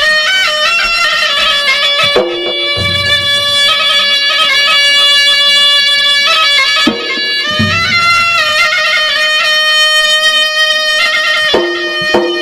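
Traditional Maros gendang ensemble music: a shrill double-reed pipe (puik-puik) plays a sustained, ornamented melody with a few low drum strokes under it.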